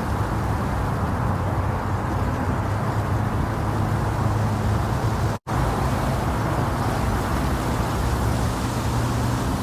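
Steady womb-like sleep noise for babies: a deep, even hiss-rumble with most of its weight low down. It cuts out for an instant about five and a half seconds in, then carries on unchanged.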